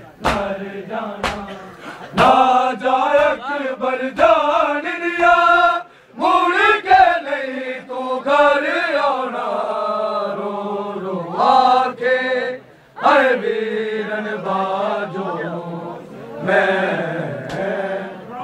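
Men chanting a noha, a Muharram lament, with sharp slaps of matam (open hands beating on bare chests) at a steady beat, clearest in the first two seconds. The chant dips briefly about six seconds in and again near thirteen seconds.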